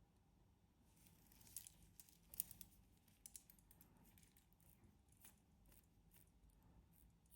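Faint, scattered small clicks and light rustling from a titanium wristwatch and its bracelet being handled, with one sharper click about two and a half seconds in.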